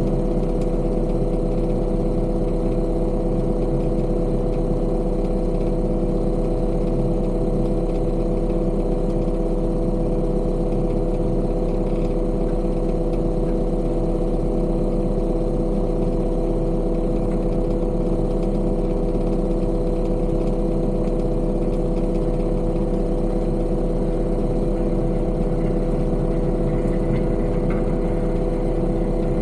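Engine of heavy construction machinery running at a steady speed, a constant unchanging drone.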